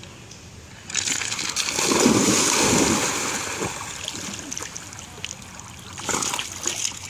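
A dog splashing through river water as it swims: heavy splashing starts about a second in, is loudest a second later and fades as it settles into paddling, with a few more splashes near the end.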